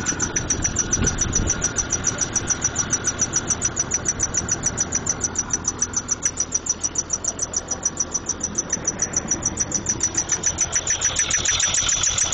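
A 1996 Jeep Grand Cherokee's 4.0L inline-six idling with a fast, even ticking in time with the engine. This is the new noise that the owner says is still there with the serpentine belt taken off, so it is not coming from the belt-driven accessories.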